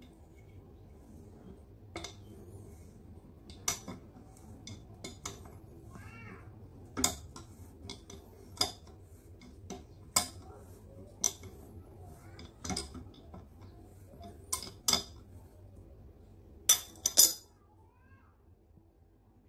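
Adjustable steel wrench clinking against the metal priming plug of a jet water pump as the plug is tightened after the pump has been filled with water to prime it: irregular sharp metallic clinks, the loudest two close together near the end.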